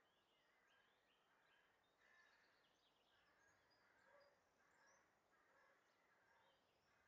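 Near silence, with faint bird chirps repeating about twice a second.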